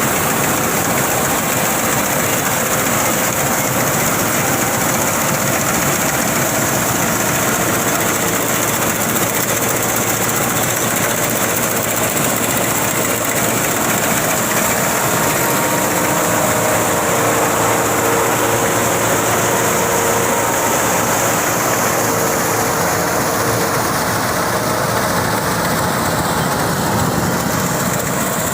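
Tractor engine driving a straw chopper (toori-making machine) in a wheat field, running steadily with a dense mechanical rumble and whirr that holds an even level throughout.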